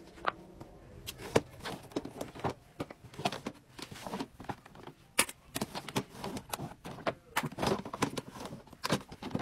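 Plastic storage-cart drawers being slid open and shut and the toys inside handled, making irregular clicks and knocks.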